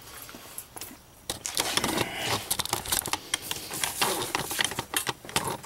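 Handling noise from a camcorder being picked up and carried: a quick, irregular run of clicks and knocks that starts about a second and a half in.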